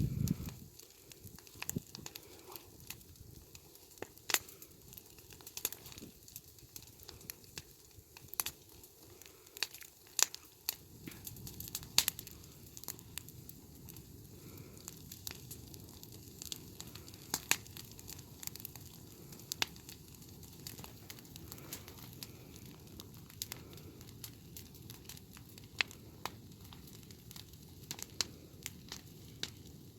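A dying campfire crackling, with sharp irregular pops over a faint steady hiss.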